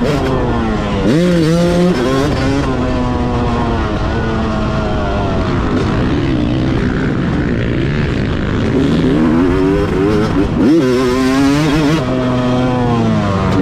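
2021 Yamaha YZ250 single-cylinder two-stroke with a Scalvini expansion-chamber pipe, heard from the rider's seat, revving up and down as the throttle is opened and closed through the track's jumps and turns. Its pitch climbs and drops repeatedly, with a quick run of rising and falling revs about ten seconds in.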